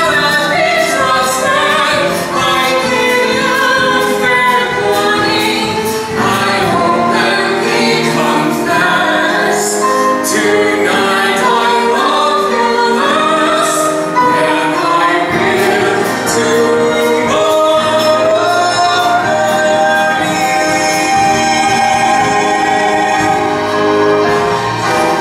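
A woman and a man singing a love duet with musical accompaniment, ending on long held notes near the end.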